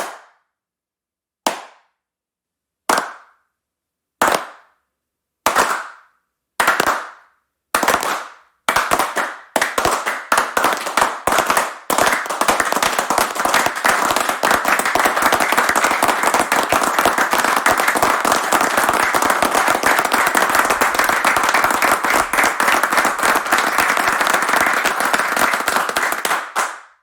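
Slow clap building into applause: single hand claps at first, about one every second and a half, coming faster and faster until about twelve seconds in they merge into steady applause, which stops just before the end.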